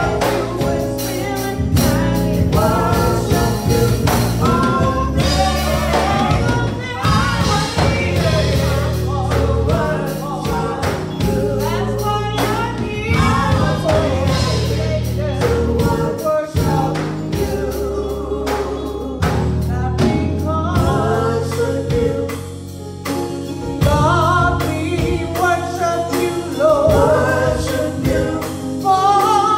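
A small gospel praise team of women's and men's voices singing together, over steady bass and drum accompaniment.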